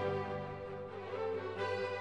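Orchestral film score with held string notes.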